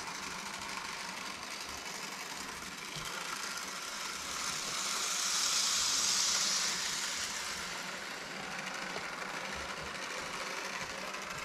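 Small-scale model train running on its track, a steady whir of its little electric motor and wheels that grows louder for a couple of seconds about halfway through.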